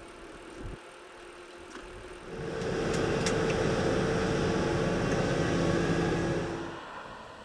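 Diesel engine of a Volvo wheeled excavator running steadily. It comes in about two seconds in and fades near the end, with a couple of sharp metallic clicks about three seconds in.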